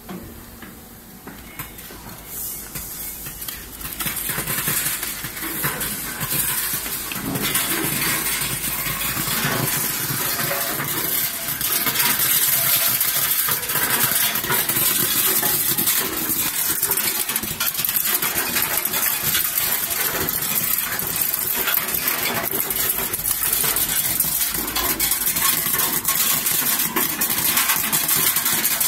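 Candle nuts clattering down the steel chutes of an optical colour-sorting machine: a dense, continuous rattle of hard nuts on metal. It builds over the first dozen seconds and then holds steady.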